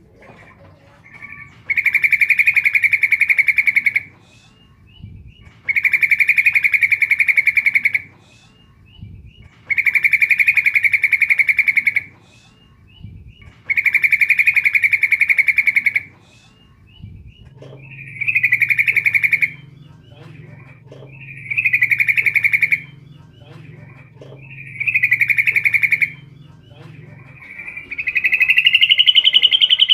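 Female yellow-vented bulbul (trucukan) calling to males: a fast chattering phrase about two seconds long, repeated about every four seconds, the last one rising in pitch.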